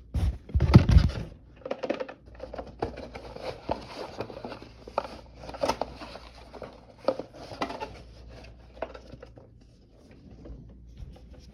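Hands rummaging through objects and packaging: a loud bump and rustle about a second in, then scattered clicks, taps and rustling.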